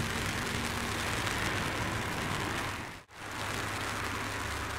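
Steady rain falling on grass and trees, an even hiss that cuts out for a split second about three seconds in and then resumes.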